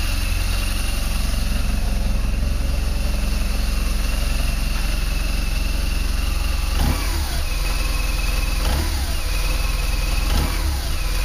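BMW R1200GS air/oil-cooled boxer twin idling steadily, at a tickover the owner thinks may be a bit high. The revs are blipped briefly three times in the second half.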